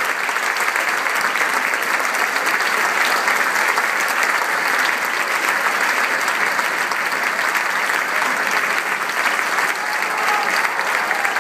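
Large audience applauding, steady dense clapping that holds at one level throughout.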